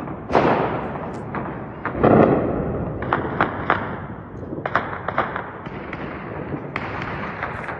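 Gunshots fired in the open: irregular single shots and short clusters, each trailing off in a long echo, the loudest about two seconds in.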